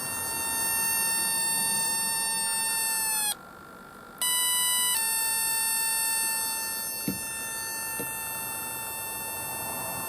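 Electronic buzzer tone from a 555-timer doorbell kit. It sags slightly and cuts out briefly, comes back higher, then steps down and holds steady. It keeps sounding long after it should have stopped, a long delay the builder first suspects is down to the capacitors. Two faint clicks come later on.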